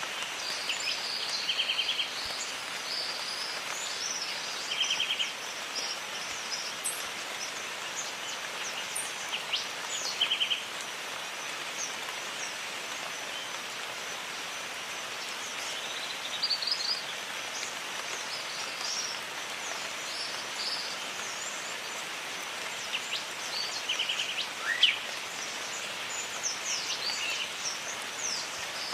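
Steady rain falling in a jungle, with birds calling over it: a short rapid trill repeated four times and scattered high chirps and whistles.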